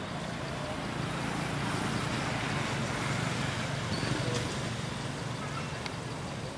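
A motor vehicle passing on a road, its engine and tyre noise swelling over the first few seconds and easing off near the end.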